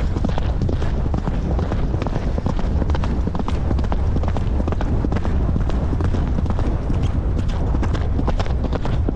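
Horse galloping, a quick, uneven run of hoofbeats, with wind buffeting the microphone.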